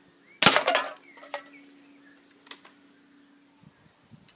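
B2 air rifle firing a single shot about half a second in: a sharp crack with a brief tail, followed by a couple of faint clicks.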